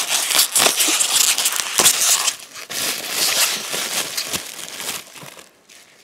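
Plastic bubble wrap crinkling and crackling as gloved hands unwrap a small item, a dense run of crackles that dies down about five seconds in.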